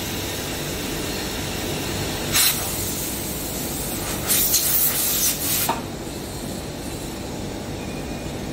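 Two blasts of compressed air from an air blow gun: a short one about two seconds in and a longer, uneven one about a second and a half later, over steady factory background noise.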